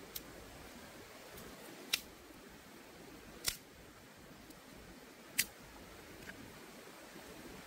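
A few short, sharp clicks at irregular intervals, about every one and a half to two seconds, over a faint steady hiss.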